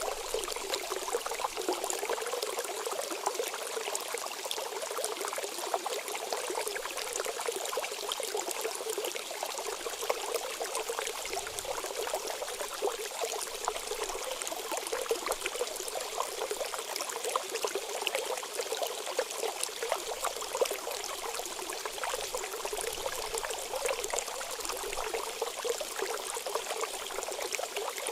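Mineral water running out of a shot-up bottle in a steady trickling stream, with a fine crackle.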